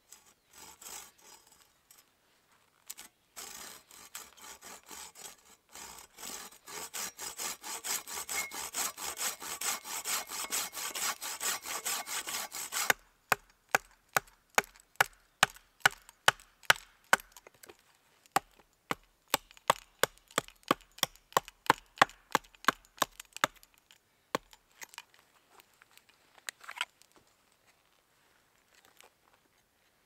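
Folding pruning saw cutting through a wooden branch in rapid back-and-forth strokes that grow louder, then a hatchet striking the branch with sharp chops about two a second, with a short pause partway through.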